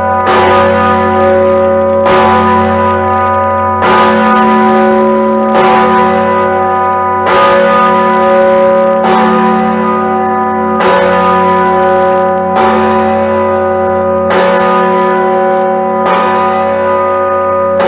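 The Anzac Bell, a large swinging church bell, heard close up, its clapper striking about every 1.8 seconds. Each strike rings on into the next, so the bell's deep hum never dies away.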